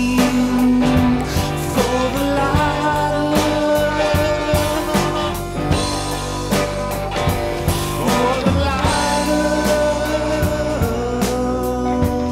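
Music: a rock song with electric guitar and drums playing to a steady beat.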